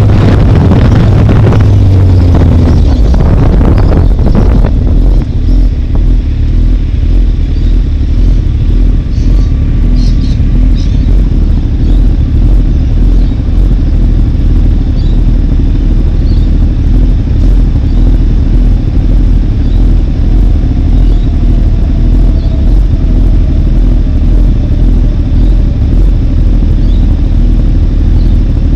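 Wind rushing over the microphone for the first few seconds while moving, then a steady low engine idle with the vehicles stopped in traffic.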